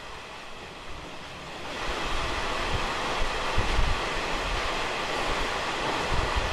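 Running noise of a Taiwan Railways SPK32700-type ordinary passenger coach at about 80 km/h, which jumps louder and fuller about two seconds in as the train enters a tunnel. Several heavy low thumps come in the middle and near the end.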